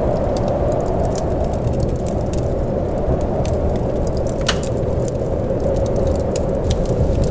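Steady rain ambience, a constant low wash, with scattered sharp crackles and pops throughout.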